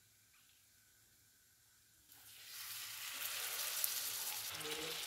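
Batter-coated potato patties (aloo tikki) sizzling in hot oil in a frying pan. The first couple of seconds are nearly quiet; about two seconds in a steady sizzle starts as another patty goes into the oil, and it quickly grows louder and holds.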